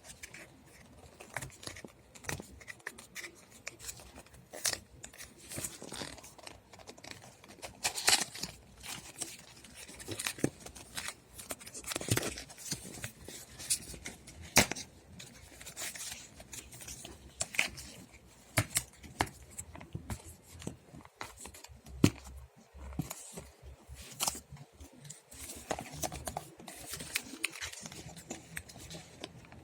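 Fitness-band box and packaging being handled and opened by hand: scattered sharp clicks and taps with short bursts of rustling and scraping at irregular intervals.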